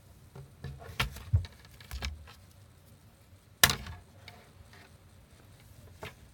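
A scattering of small knocks and taps at irregular times, with one sharp knock, the loudest, a little past the middle.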